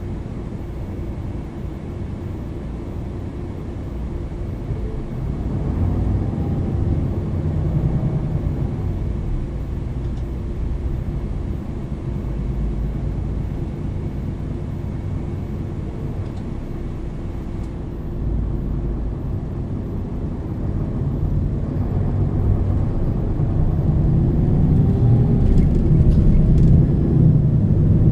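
MAN NL 323 city bus driving, its diesel engine and ZF EcoLife automatic gearbox giving a steady low drone. The engine note swells as the bus accelerates about five seconds in, and again, louder, through the last ten seconds.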